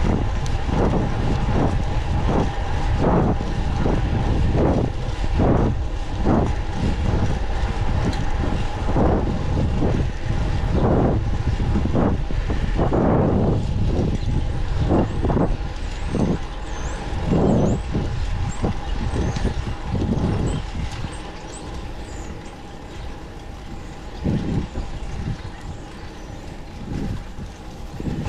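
Wind rushing over the microphone of a camera riding along on a bicycle, in repeated gusts, with traffic rumbling and a steady hum under it. It eases and turns quieter after about twenty seconds.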